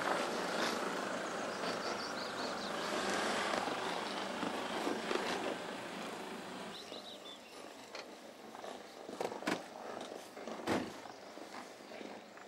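Land Rover Defender's diesel engine and tyres on river-bed gravel as it rolls slowly over the stones and comes to a stop, the sound fading away after about six seconds. A few sharp clicks and knocks follow near the end.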